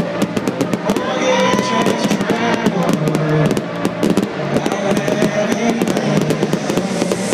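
Fireworks going off in rapid, irregular bangs and crackles over amplified electronic dance music from the stage sound system.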